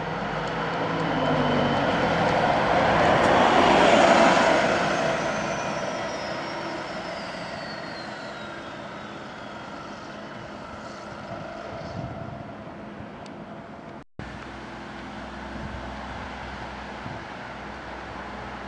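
Double-decker bus driving past close by: its engine and tyre noise swell to a peak about four seconds in and then fade, with a high whine sliding down in pitch as it goes. After a brief break in the sound near the end, another double-decker's engine is heard approaching at a lower, steady level.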